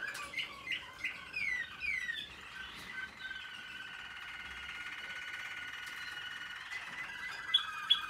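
Young American Singer canaries in song training, singing. Over the first two seconds there is a run of falling slurred notes, then a long fast trill, then repeated notes with a few sharp, loud high notes near the end.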